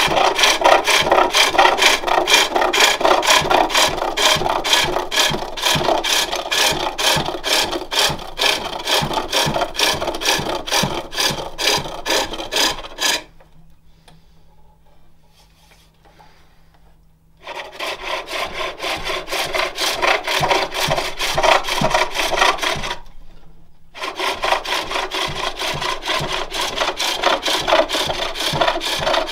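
A turning tool cuts jacaranda wood on a spring pole lathe: a rasping, scraping shaving sound that comes in a quick, even rhythm of strokes as the work spins back and forth. The cutting stops for about four seconds a little before halfway, then resumes, with another short break near three-quarters through.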